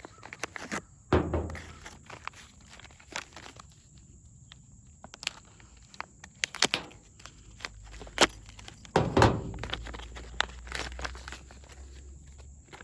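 Small parts and packaging from a door-lock and key kit being handled: scattered clicks and light knocks, with two louder rustling thumps, about a second in and about nine seconds in.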